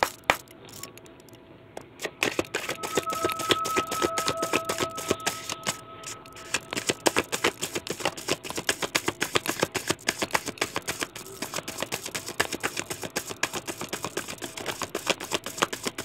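A deck of tarot cards being shuffled by hand: a fast, dense run of papery card clicks that starts about two seconds in and keeps going.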